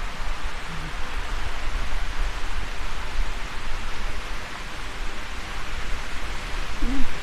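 Steady rain falling, a continuous hiss, with a low rumble of wind buffeting the microphone.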